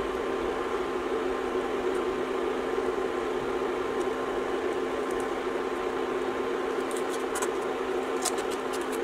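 Steady hiss and hum from a skillet of vegetables steaming on an induction cooker, with a few light clicks near the end as tomato slices are laid in with tongs.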